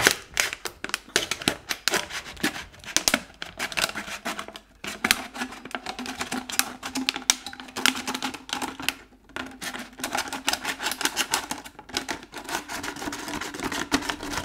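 Kitchen knife sawing and twisting into a thin empty plastic water bottle: a rapid, uneven run of sharp plastic crackles and clicks, with two brief lulls.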